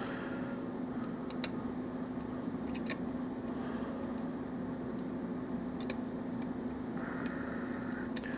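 Faint, scattered clicks of a lock pick working the pins of a Russwin pin-tumbler challenge lock during single-pin picking, over a steady low background hum.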